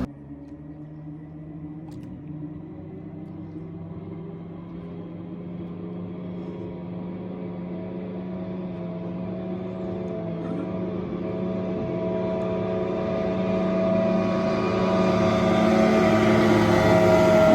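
Small outboard boat motor running at a steady speed, growing steadily louder.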